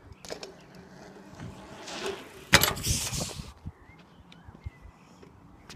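A bicycle rolling past close on concrete: the tyre hiss swells and rises for a couple of seconds in the middle, with a sharp click partway through that is the loudest sound.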